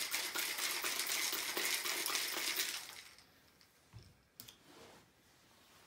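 Ice rattling in a Boston shaker (glass mixing glass capped with a metal tin) being shaken hard to chill a drink: a fast, continuous clatter that stops about three seconds in. A couple of faint knocks follow about a second later.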